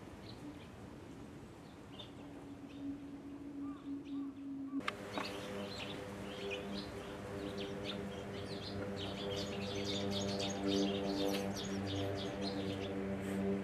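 Small birds giving short, thin high chirps. About five seconds in, the sound cuts abruptly to busier chirping laid over steady held tones of background music.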